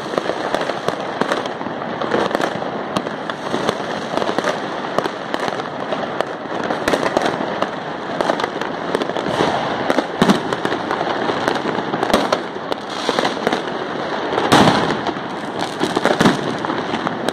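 Many fireworks going off at once: a dense, continuous crackle of pops and bangs with no let-up, and one louder bang near the end.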